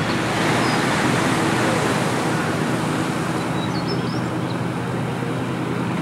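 Small waves washing onto a pebble beach, a steady rushing wash, over the low steady hum of a tour boat's engine running at its landing.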